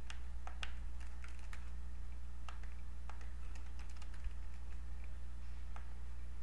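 Computer keyboard typing: irregular, sparse keystrokes as a user ID and password are entered, over a steady low electrical hum.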